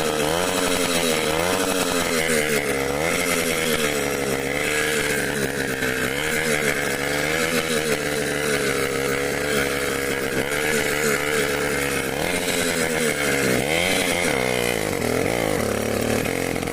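Moped engine rumbling through its exhaust pipe, the revs rising and falling again and again.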